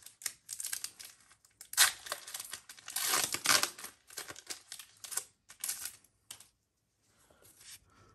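Foil wrapper of a Pokémon card booster pack crinkling and tearing as it is opened by hand, in irregular rustling bursts, loudest about two seconds in and again around three seconds in, then dying away near the end.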